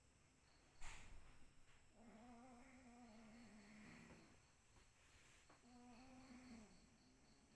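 Domestic cat giving two long, low yowls, each held at a steady pitch with a slight waver, the first about two seconds long and the second shorter; this is the drawn-out moaning call cats make at each other before a fight. A single knock sounds about a second in.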